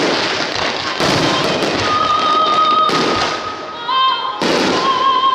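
Aerial fireworks shells bursting in quick succession, four loud reports with crackle, over loud music synchronized to the show.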